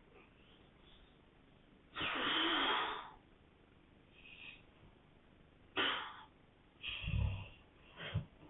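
Man snoring in his sleep: one long snore of about a second, about two seconds in, then a few shorter snores and breaths, the deepest about seven seconds in.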